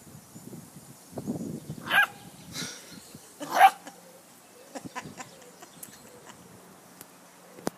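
Two dogs play-fighting: a low growl, then two short, high-pitched barks about two seconds and three and a half seconds in, the second the louder.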